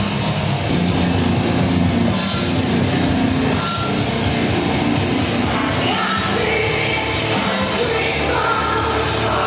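Heavy metal music: distorted band sound with drums and loud sung and yelled vocals, the vocal line becoming more prominent in the second half.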